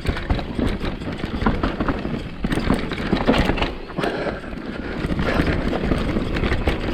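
Mountain bike riding down a rough trail: tyres rolling over dirt with a constant clatter of chain and frame over bumps, and wind rumbling on the microphone.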